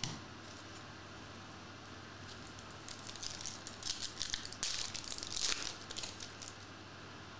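Foil wrapper of a Topps Chrome trading-card pack crinkling as it is torn open and the cards are slid out: a cluster of crackles starting about three seconds in and ending about six seconds in, loudest near five seconds.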